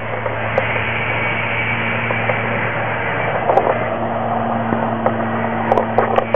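A steady low hum over an even hiss, with a few faint clicks, several close together near the end.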